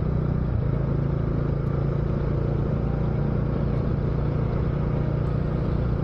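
Motorcycle engine running steadily on the move, a constant engine hum under even wind and road noise.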